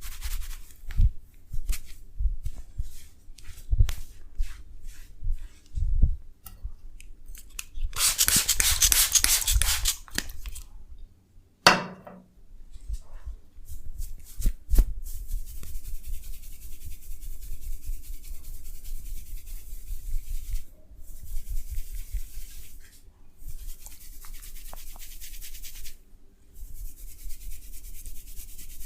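Hands working a massage: a run of light taps and clicks, then a few seconds of loud, dense crackling friction. A short falling tone follows, then long stretches of steady brisk rubbing broken by short pauses.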